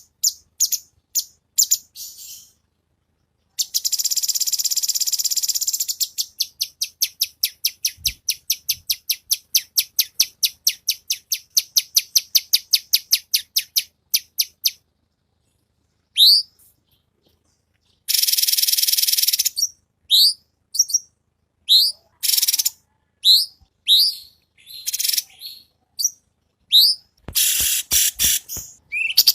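A cucak cungkok singing. It opens with a buzzy burst, then a long series of sharp repeated notes at about three to four a second. After a short pause comes another buzzy burst and a run of short rising whistles mixed with harsher notes.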